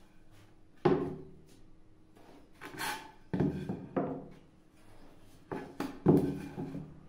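Pieces of wood being handled on a workbench: several hollow knocks as they are set down and bump together, with a short scraping slide near 3 seconds in.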